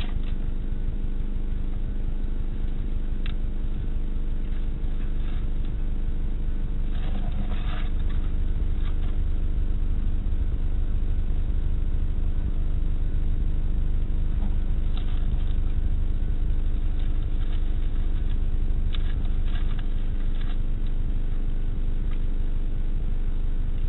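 Steady low electrical hum of several even tones from a CCTV camera's microphone, with a few faint clicks and rustles scattered through it.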